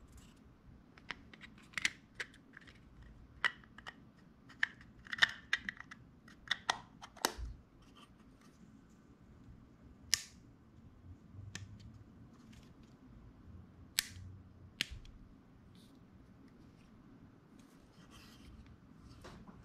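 Sigma 35 mm F1.4 DG lens and its plastic lens caps being handled, giving irregular small clicks and knocks. There is a busy run of clicks over the first several seconds, then a few single sharper clicks spaced out later.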